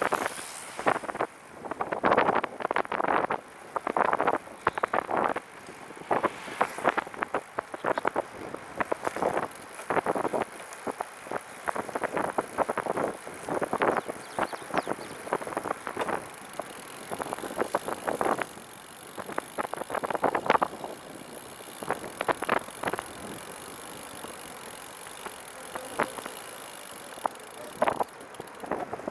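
Recumbent trike riding along, with frequent short irregular rattles over a steady rush of tyre and wind noise.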